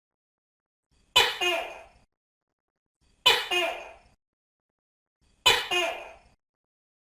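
Gecko calling three times, about two seconds apart. Each call is a sharp two-part call that fades quickly; this is the call the gecko is named after.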